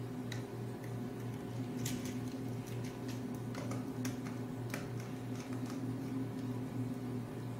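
Scattered light plastic clicks and handling noise as hands work on a contactor and its wiring on a starter panel board, over a steady low hum.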